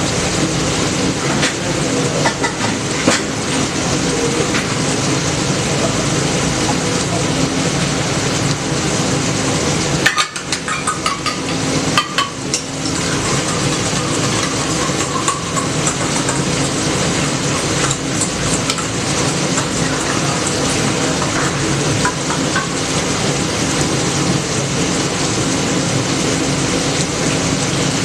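Food frying in a pan with a steady sizzle, and a few clinks and scrapes of a utensil between about ten and thirteen seconds in.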